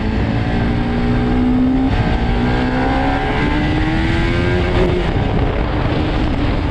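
Motorcycle engine accelerating through the gears: its pitch climbs steadily, dips briefly at about three gear changes, then climbs again.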